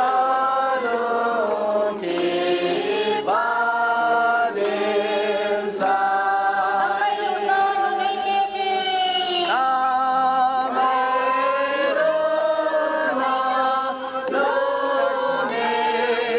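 A group of women singing together into a microphone, in phrases of long held notes a few seconds each.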